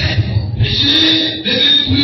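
Loud worship music over the church's loudspeakers, with a steady low beat and long held notes.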